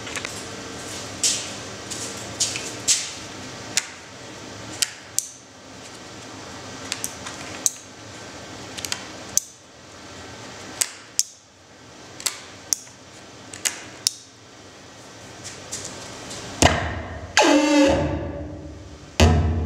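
Sharp amplified clicks at irregular intervals from a home-made magnetic-switch feedback rig built around a turntable and mixer. Near the end a loud wavering feedback tone slides down in pitch, followed by a deep thump.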